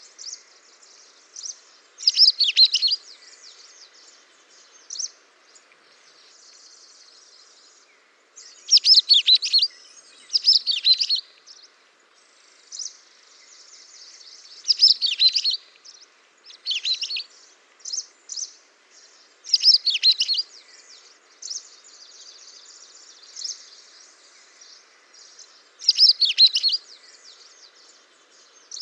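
Small songbirds singing: quick warbled phrases repeated every few seconds, with quieter chirps and twitters in between.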